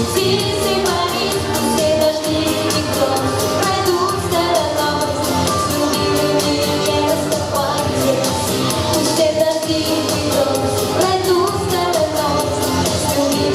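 A pop-style song: a singer over music with a steady beat.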